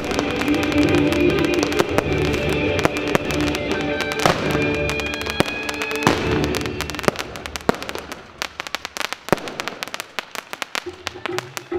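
Fireworks display set to recorded music: many rapid crackles and pops over the music. The music fades out about two-thirds of the way through, leaving scattered crackles, and new music starts near the end.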